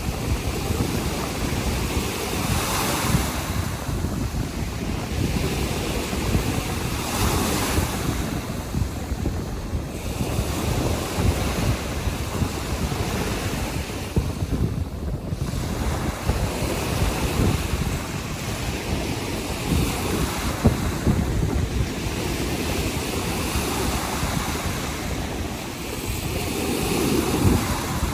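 Baltic Sea surf breaking on the shore, the hiss of each wave swelling and fading every few seconds, over a steady low rumble of wind buffeting the microphone.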